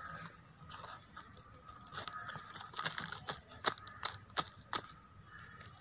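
Young horse gram greens being plucked by hand from a soil-filled sack: leaves rustle and stems break with a few sharp snaps and clicks, the loudest three or four about three and a half to five seconds in.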